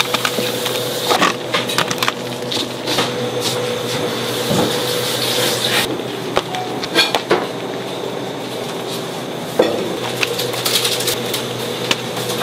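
Knife cutting fruit on a cutting board: irregular knocks and clatter of blade and utensils, over a steady hum.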